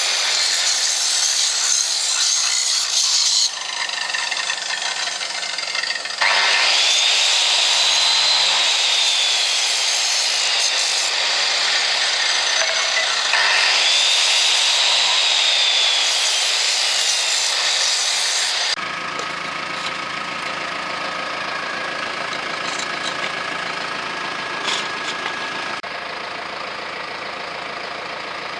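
Power tool working metal: a loud hissing grind with a motor whine that twice starts up and then sags in pitch as it is loaded. About two-thirds of the way in it stops abruptly, leaving a quieter, steady machine hum.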